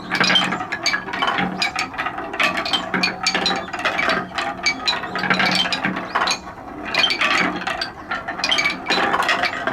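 Many balls rolling and clattering down a wooden marble run, a dense, continuous stream of wooden clicks and clacks as they drop step by step down stair-shaped slopes.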